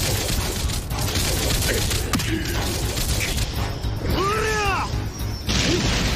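Anime battle sound effects: a dense, continuous rumble of energy blasts and impacts, with a strained yell that rises and falls about four seconds in.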